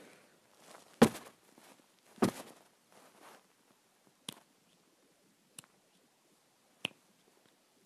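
Handling noise on a kitchen counter: two dull knocks about one and two seconds in, then three light, sharp clicks spread over the rest.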